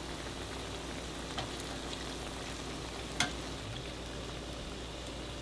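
Donut dough deep-frying in hot oil, a steady sizzle, with a sharp click about three seconds in.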